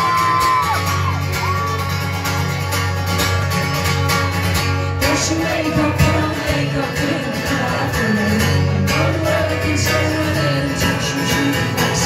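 Amplified acoustic guitar strummed steadily, with a woman's voice singing from about five seconds in. A few crowd whoops trail off in the first second or so.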